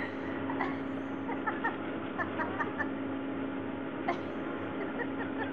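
Steady low hum of a surface ski lift's drive, with many short, high chirps scattered over it.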